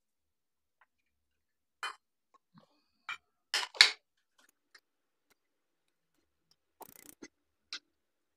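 Kitchen handling noises: a few separate sharp clicks and knocks, the loudest pair about three and a half seconds in, then a short crackle near the end, with near silence between them.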